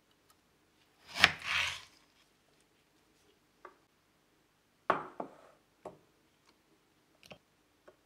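A serrated kitchen knife cuts through a lemon and knocks onto a wooden cutting board about a second in: a sharp knock, then a short rasp of the blade. A few lighter knocks and taps follow later.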